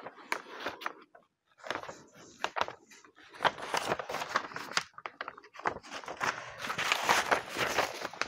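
Sheet of paper rustling and crinkling in irregular bursts as it is peeled off a thin baked honey-cake layer, with a short pause about a second in.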